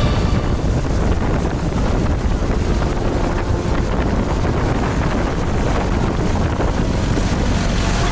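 Speedboat running at speed with its 200 hp outboard motor: a steady rush of wind buffeting the microphone over the churn of the wake.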